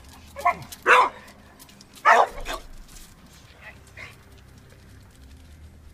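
American Bulldog barking on leash, aggressive reactive barking: three loud barks in the first two and a half seconds, the last the loudest, then two fainter barks about four seconds in.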